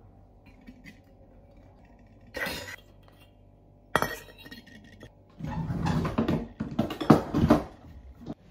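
Stainless steel bowls clinking and clattering on a table as they are handled and plastic markers are put on their rims. There is a short clatter about two seconds in, a sharp clink at about four seconds, and a busy run of clinks near the end, which is the loudest part.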